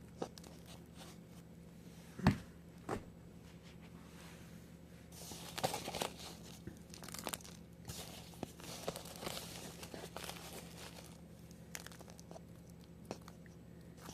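Potting soil being scooped and dropped into a pot around a tomato transplant by hand, a faint rustling and crunching. There are two knocks about two seconds in, and a longer spell of rustling from about five to ten seconds in.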